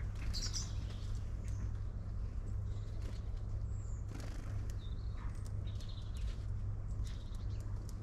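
Small garden birds giving short, high chirps and calls at a bird feeder, with scattered light clicks and taps. A steady low hum runs underneath.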